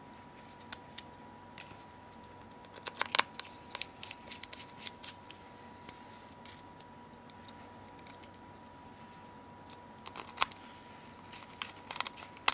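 Small sharp clicks and taps of a small screwdriver and T5 screws against the Nokia X7's plastic and metal case as the phone is handled, with a cluster about three seconds in and another about ten seconds in.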